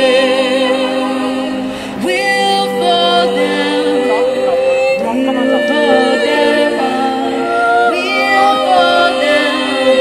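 A woman singing through a microphone and small portable amplifier, in long held notes, some with vibrato.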